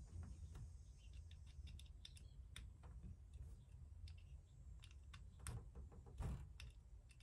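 Faint, irregular clicks and ticks of a small screwdriver backing out the screws on a Traxxas RC car's differential a fraction of a turn at a time, loosening it so the differential spins freely. Two slightly louder clicks come near the end.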